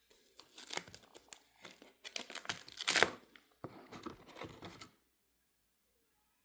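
Plastic pages of a card-collector's binder crinkling and peeling apart as they are handled. A run of irregular rustles stops about five seconds in.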